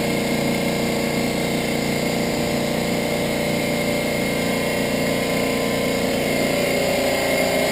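Honda Accord engine idling steadily, with a slight change in its pitch near the end.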